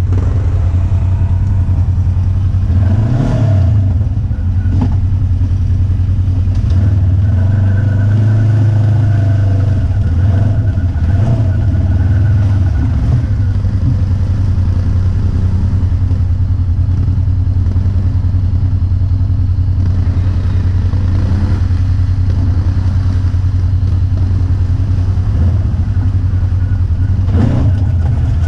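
ATV engine running steadily under way, with a few brief rises in engine speed, about three seconds in and again around eleven seconds.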